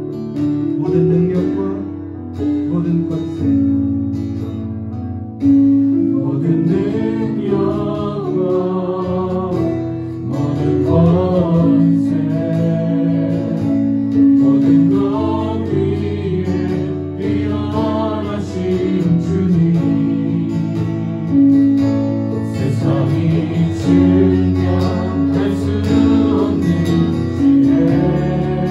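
Praise song played on acoustic guitar, with several voices starting to sing together about five seconds in.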